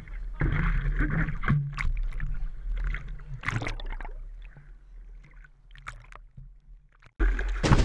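Water splashing and sloshing against a board-mounted action camera in its waterproof housing as a surfer paddles, over a steady low rumble, with a few sharp splashes. About halfway through the sound goes duller and quieter as the camera dips under the water. Music cuts in abruptly near the end.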